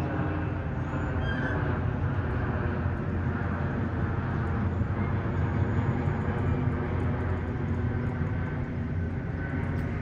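Steady low rumble of distant engines, swelling slightly about halfway through.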